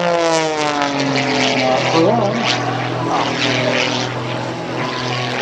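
Aerobatic airplane's propeller engine passing overhead, its pitch falling over the first two seconds as it pulls away into a steep climb, then a steady drone.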